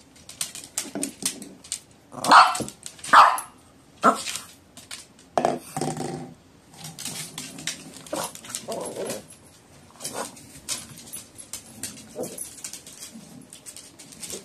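A small puppy barking and growling as it plays, with two loud barks close together about two seconds in, a shorter bark just after, and lower growls later on. Throughout, a plastic bottle knocks and rattles as it is pawed and pushed across a wooden floor.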